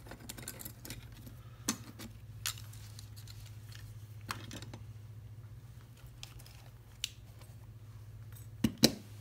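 Small metal clicks and clinks from handling a picked-open padlock and lock-picking tools, with two sharp clicks close together near the end. A steady low hum runs underneath.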